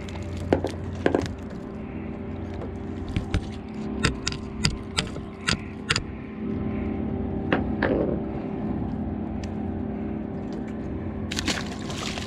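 A boat engine idling steadily, under a series of sharp clicks and knocks as a bucktail hook is worked out of a fluke's mouth. Near the end comes a short splash as the fish is dropped back into the water.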